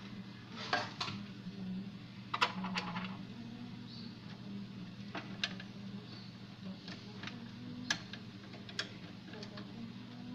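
Scattered light clicks and small metallic clinks, the loudest about one and two and a half seconds in, over a steady low hum.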